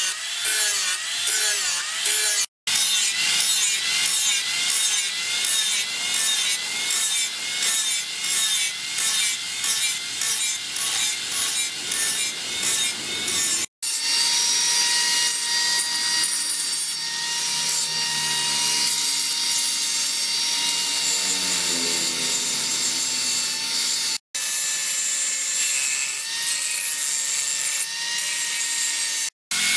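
Steel knife blade being worked by hand with back-and-forth rubbing strokes, about one and a half a second, in several short edited takes. In the second half the rubbing turns steadier, with a faint ringing tone from the metal.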